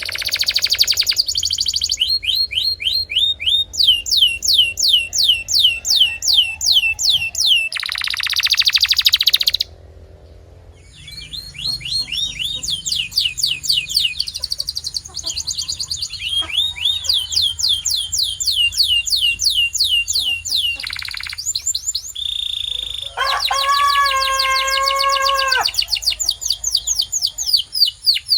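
A domestic canary singing: long fast trills of repeated high falling notes, with a short break about ten seconds in and a lower, rolling trill near the end.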